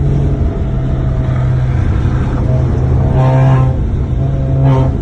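Car engine running at a steady speed, a loud, even low drone. Short higher-pitched sounds rise over it about three seconds in and again near the end.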